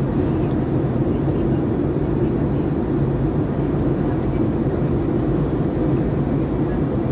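Steady drone of an airliner in flight heard from inside the passenger cabin: engine and airflow noise, low and even, with a faint steady hum.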